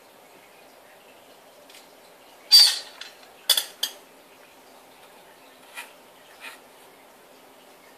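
Metal tweezers picked up and handled on a cloth-covered table: a loud clatter about two and a half seconds in, then three quick clicks of the metal, and two faint taps later.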